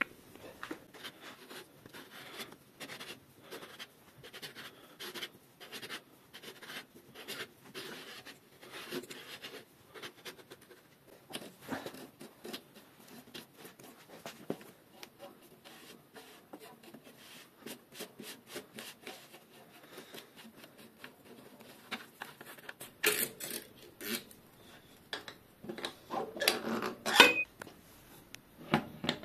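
Bicycle bottom bracket facing tool turned by hand, its cutter scraping paint and metal off the face of the frame's bottom bracket shell in a series of short rasping strokes. It is facing the shell flat so the bearings seat squarely and stop creaking. Near the end come a few louder metal scrapes and clinks.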